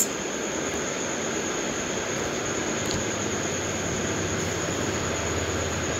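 Steady room background noise: an even hiss with a low hum and a faint, thin high whine, with no distinct strokes or knocks.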